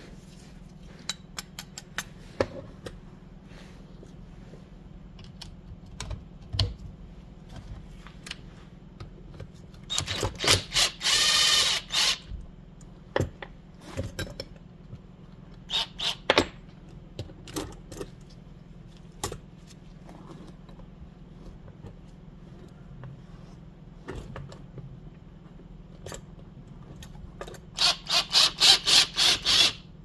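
Hand ratchet clicking as the bolts holding the carburetor to the intake manifold are loosened: a dense run of clicking about ten seconds in and a run of quick, even strokes near the end, between scattered clinks of metal tools and parts set down on a wooden workbench.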